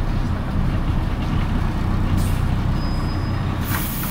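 Autosan Sancity 12 LF low-floor city bus heard from inside, its engine and drivetrain rumbling steadily as it pulls into a stop. About three and a half seconds in, a loud hiss of compressed air from the bus's pneumatic system starts as the bus halts.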